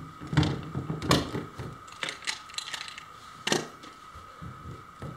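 Hand pop-rivet tool clicking and clinking as rivets are set along a kayak's seam: a string of sharp metallic clicks, the loudest about three and a half seconds in.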